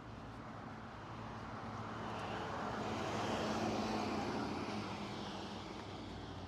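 Engine noise of a passing vehicle, swelling to its loudest about halfway through and fading again.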